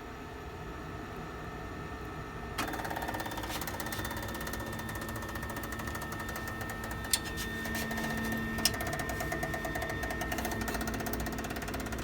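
Flsun delta 3D printer's stepper motors driving the carriages, starting about two and a half seconds in with a rapid buzz and a steady whine. Two sharp clicks come about a second and a half apart near the middle.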